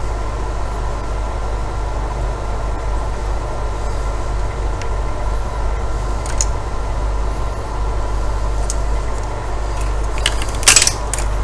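Steady low background hum with a few faint handling clicks from a router being pried apart. Near the end comes a short, sharp clatter as a small Wi-Fi antenna breaks loose and goes flying.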